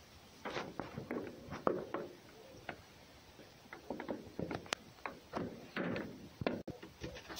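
A cat eating off the lid of a wooden box: irregular short clicks, knocks and scrapes, busiest from about half a second to two seconds in and again from about four to six seconds in.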